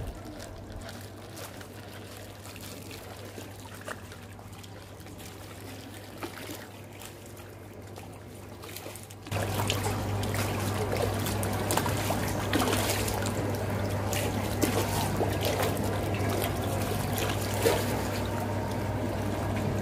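Water splashing and sloshing as a crowd of catfish thrashes at the surface, snapping up thrown fish food. The splashing gets louder and busier about halfway, with many small slaps and pops. A steady low hum runs underneath.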